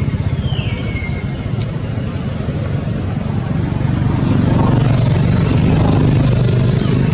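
A motor vehicle's engine running steadily with a low hum, growing louder about four seconds in.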